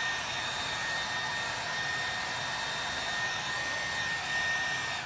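Hair dryer blowing steadily with a thin high whine over its air noise, switched off abruptly at the very end.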